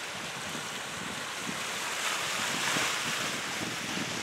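Wind buffeting the microphone over the wash of choppy waves, an even rushing hiss with gusty low flutter that swells about halfway through.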